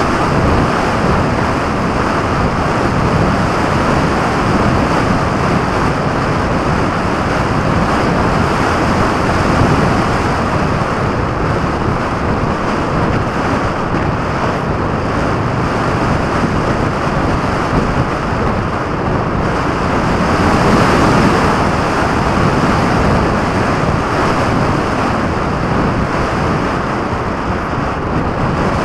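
Wind rushing over the microphone of a camera carried on a flying model aircraft: a steady airflow rush with no engine tone, swelling a little about two-thirds of the way in.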